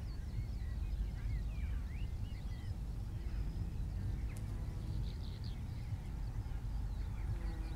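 Outdoor ambience of several small birds chirping and singing in short gliding notes, over a steady low rumble.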